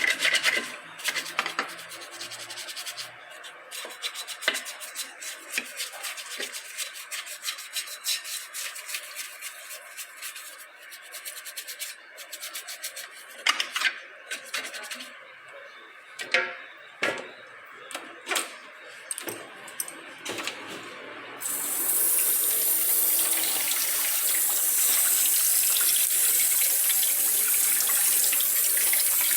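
Rapid, irregular scraping and rubbing on metal brake parts with a few sharper knocks, as in cleaning or brushing; about two-thirds of the way through a steady, even hiss of spray starts and continues.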